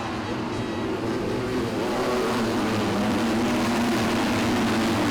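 Engine running with a steady low drone, growing a little louder about two seconds in.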